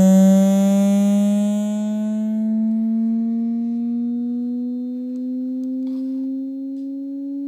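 Dell Alienware M18x laptop speakers playing a steady tone that rises slowly in pitch, buzzy and full of overtones. The right side vibrates, a fault that has been there since the motherboard was replaced for the second time.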